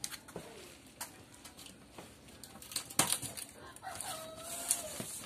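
A chicken calling: a short note near the start and one drawn-out call about four seconds in that holds its pitch and falls slightly at the end. A sharp knock about three seconds in is the loudest sound.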